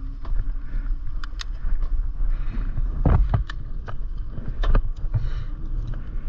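Mountain bike being ridden with wind rumbling on the microphone, while the rear derailleur is shifted through the gears on a new 8-speed SRAM chain: a few sharp clicks come as the chain changes sprockets.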